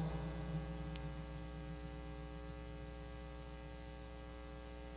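Steady electrical mains hum picked up through the pulpit microphone's sound system, with a faint click about a second in.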